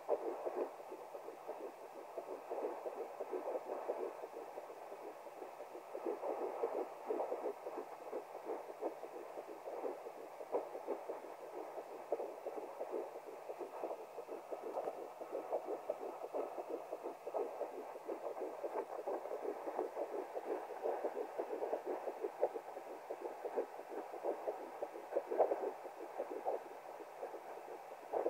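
Fetal heartbeat at 10 weeks 3 days of pregnancy, picked up by a handheld fetal Doppler and played through its speaker: a fast, steady pulsing.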